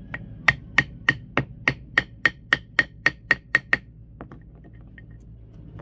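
A rock used as a hammer striking a metal grommet-setting punch about a dozen times in quick succession, roughly three blows a second, each a sharp clink with a short ring at the same pitch, followed by a couple of light taps. The blows are clinching a new metal grommet into the nylon flag's header.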